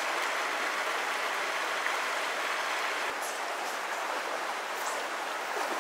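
Shallow river water rushing over stones: a steady, even rush.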